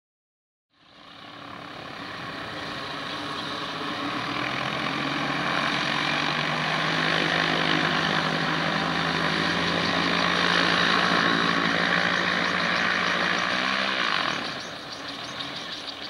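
Magni gyroplane's engine and pusher propeller running steadily at high power, the rotor turning overhead, getting louder over the first few seconds. About fourteen seconds in the engine drops back and a regular pulsing comes through.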